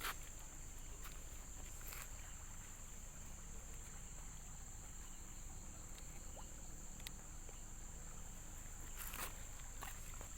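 Steady high-pitched insect chorus, with a few footsteps on the ground near the start, about two seconds in, and again about nine seconds in.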